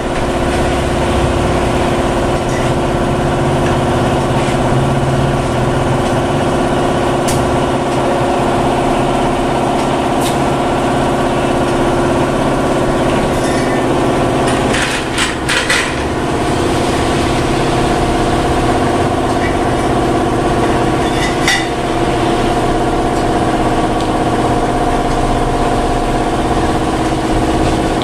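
A motor running steadily, holding one even pitch, with a few brief sharp clinks about halfway through and again a little later.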